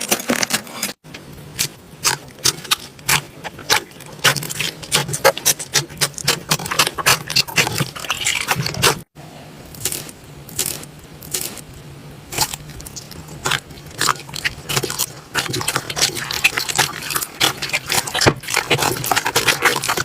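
Hands playing with slime, squeezing and poking it, giving a fast irregular run of sticky clicks and small pops over a low steady hum. The sound cuts off sharply about a second in and again about nine seconds in, where one clip gives way to the next.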